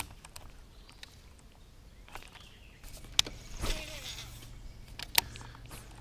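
Bow-mounted electric trolling motor humming steadily, starting about three seconds in, with a few sharp clicks from a baitcasting reel and the swish of a cast.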